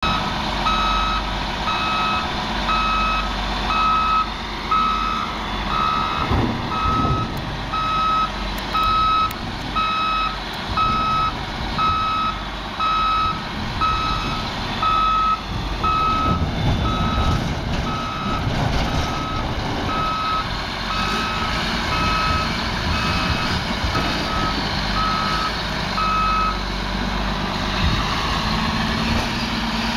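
Caterpillar 815F soil compactor's reversing alarm beeping in a regular train over the steady low rumble of its diesel engine as the machine backs up. The beeping stops near the end, leaving the engine running.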